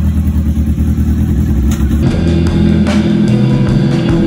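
Yamaha R6 inline-four engine running on its first fire-up after a rewire, turning the rear wheel on a paddock stand, mixed with background music. The music comes up more strongly about two seconds in.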